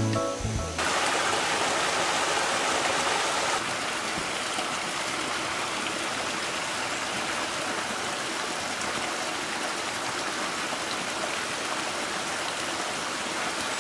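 Small forest stream running, water spilling over a low step into a pool with a steady rush. The rush drops a little in level about three and a half seconds in.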